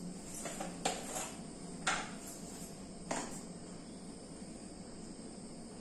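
Three sharp clicks about a second apart, from containers being handled on a kitchen counter, over a steady background hiss.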